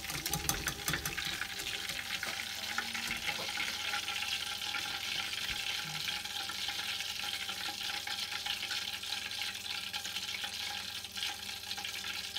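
Hot deep-frying oil in a saucepan, bubbling with a steady sizzle and crackle after the battered prawns have been lifted out. A few sharp clicks in the first second come from the wire skimmer in the pan.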